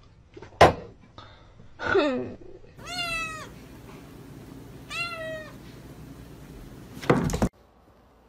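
A cat meowing: two drawn-out meows that drop in pitch at the end, after a sharp thud about half a second in. A loud noisy burst just before the end cuts off suddenly.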